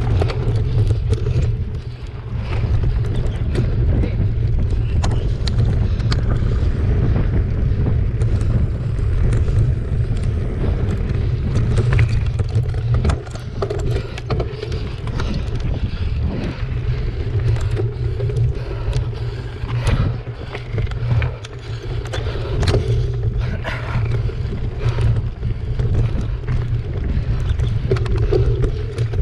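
A mountain bike ridden fast over a rough, stony dirt trail, heard through a handlebar-mounted action camera: a steady rumble of wind buffeting the microphone, with a constant stream of clicks, knocks and rattles from the bike and tyres over stones.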